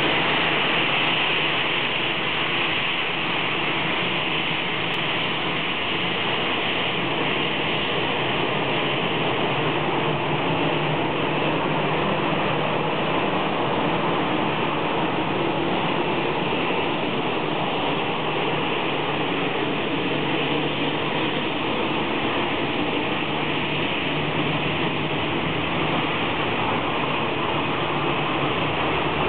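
Airbus A321-211 airliner's CFM56-5B turbofan engines running steadily at taxi power as the aircraft taxies, an even jet rush with no change in level.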